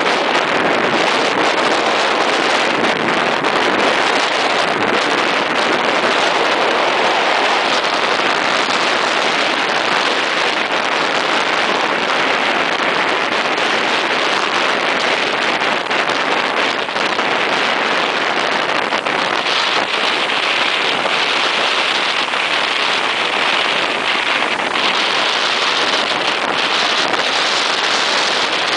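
Strong sea wind rumbling on the microphone over the steady rush of breaking surf on a rough sea.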